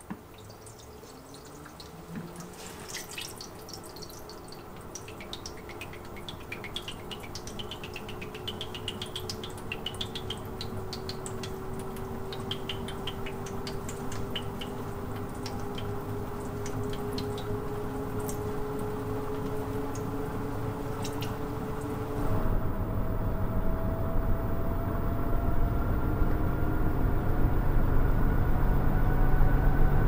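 LG TR14WK1 top-load washing machine's drum speeding up in the spin cycle: a motor whine rising slowly in pitch while the sound grows steadily louder, with dripping and splashing water for the first two-thirds. About two-thirds of the way through it changes suddenly to a louder, deeper rumble as the spin keeps building.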